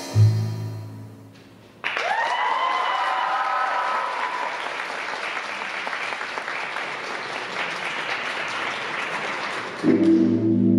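The last note of the music fades out. About two seconds in, an audience breaks into applause with high whoops and cheers. Near the end, new music starts with steady keyboard chords.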